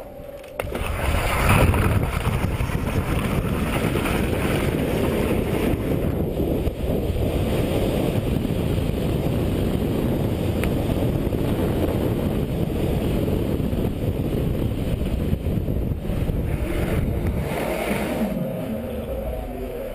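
Wind rushing over a helmet-mounted camera microphone, with skis running on snow, during a ski jump at speed. It is a loud, steady rush that eases off near the end as the skier slows on the outrun.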